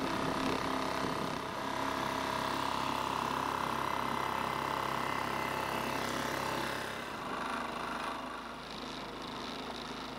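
Small boat's motor running steadily as the boat moves along the river. About seven seconds in it gives way to a quieter, softer steady noise.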